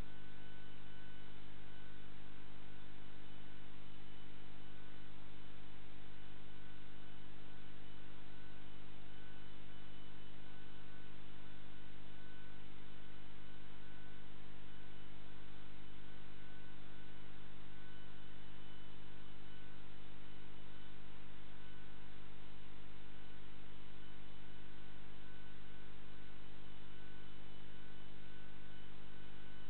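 Steady electrical hum made of several unchanging tones over a constant hiss.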